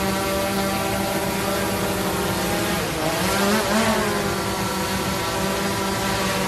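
DJI Mavic 3 quadcopter hovering close by, its propellers whining steadily. About three seconds in the whine dips in pitch and rises again as the motors change speed, then holds steady.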